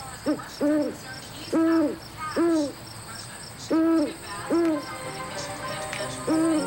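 Owl-like hooting calls in pairs, each hoot a short tone that bends up and falls away, repeated about every one to two seconds.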